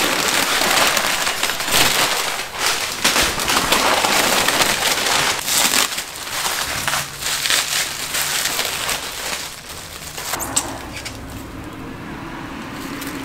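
Crumpled packing paper and bubble wrap rustling and crackling as a part is dug out of its box and unwrapped by hand, dense and busy at first and thinning out after about ten seconds. A low steady hum runs underneath in the second half.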